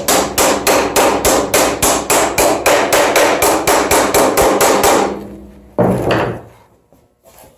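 Rapid, even hammer blows on sheet metal, about six a second, folding a plenum flange over the edge of a sheet-metal brake. The hammering stops about five seconds in, and a shorter clatter follows.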